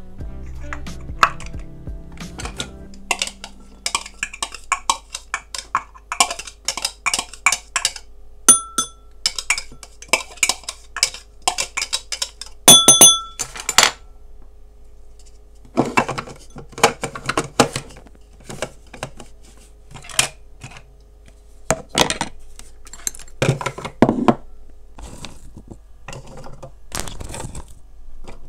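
Kitchen utensils knocking and clinking against bowls and dishes in irregular taps, with two ringing metallic clinks about nine and thirteen seconds in. Background music plays for the first few seconds.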